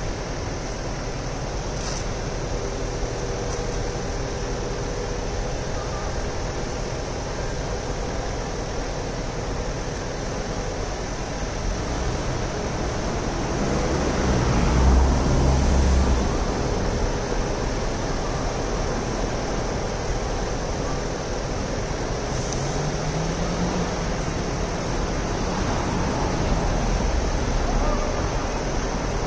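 Steady city street noise, with a taxi passing close about halfway through, its engine and tyres swelling louder and then fading. A few seconds later a vehicle's engine note briefly rises in pitch.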